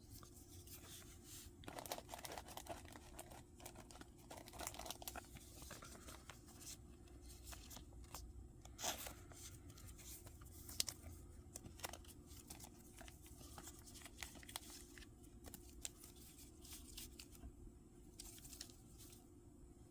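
Faint crinkling and tearing of a Pokémon booster pack's foil wrapper being opened, followed by scattered light clicks and taps of the cards being handled.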